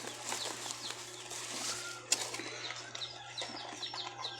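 Small birds chirping in many short, quick, descending notes, several a second, over a steady low hum, with one sharp click about two seconds in.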